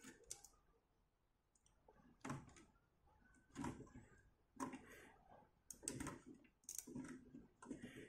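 A series of faint, irregular clicks and scrapes as a 68010 CPU chip's legs are worked into its stiff, non-zero-insertion-force DIP socket on an Amiga 500 Plus motherboard.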